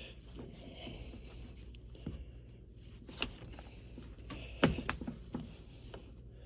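Hands scraping and rustling over automotive carpet while feeling for a bolt hole beneath it, with a few light clicks and knocks, the loudest a pair a little under five seconds in.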